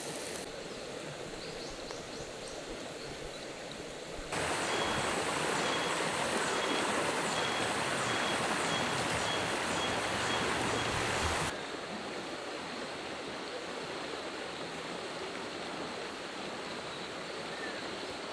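Steady rush of a shallow river flowing over stones. It gets louder about four seconds in and drops back about eleven seconds in.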